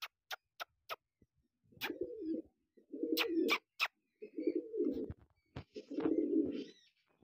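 Kalsara pigeons cooing, four low coos about a second apart, over sharp ticks of beaks pecking grain off a concrete floor, with a quick run of ticks in the first second.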